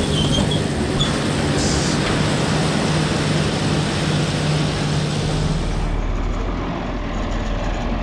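Tractor engine and KUHN VB 560 round baler running steadily as the rig pulls away across the hayfield. About six seconds in, the sound changes to a lower, steadier engine: a John Deere 4020 tractor running with a bale on its rear.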